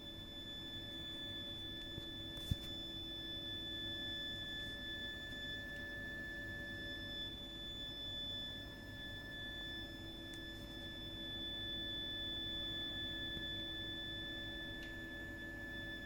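Continuous high-pitched shrieking tone from a heating system's heat interface unit (HIU) and pipework: a steady shrill note with a fainter one an octave above and lower tones beneath. It is an abnormal fault noise that runs for hours even when heating and hot water are not in use. A single brief click about two and a half seconds in.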